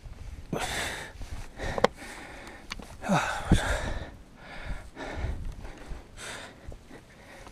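A climber breathing hard close to the microphone while scrambling up steep rock, with a series of breaths a second or two apart. A sharp knock comes about two seconds in and another about halfway through.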